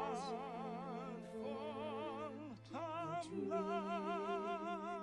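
Operatic-style singing with film-musical accompaniment: a voice holds long notes with wide vibrato over sustained low accompanying notes. The line breaks off briefly about two and a half seconds in, then a second long note is held.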